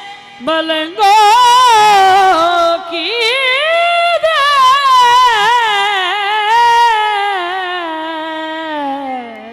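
Qawwali singer's high voice holding a long, ornamented sung phrase with a wavering pitch, gliding slowly down toward the end.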